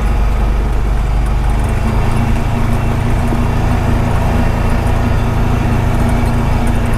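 Engine of a 2021 Honda Pioneer 520 side-by-side, a single-cylinder, running steadily as it drives along a dirt logging road, with a steady hum growing stronger about two seconds in.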